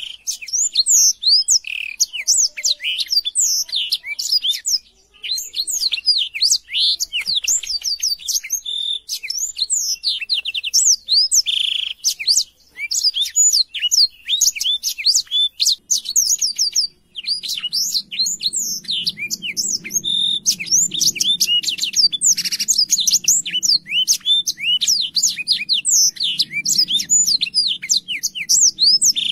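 Caged black-throated canary (blackthroat) singing a long, fast, varied song of chirps, trills and rising and falling whistles, broken only by a few brief pauses.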